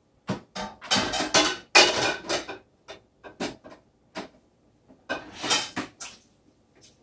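Kitchen dishes and metal utensils clinking and clattering as a plate and tongs are handled: a string of sharp clinks, with two longer bursts of clatter about a second in and about five seconds in.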